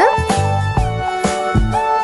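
Background music: held notes over a low bass line and a steady beat.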